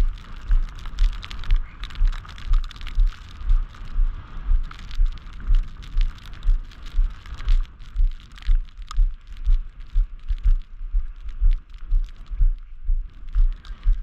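Footsteps of someone walking on a snow-covered sidewalk, about two steps a second, each a low thud with light crunching of snow.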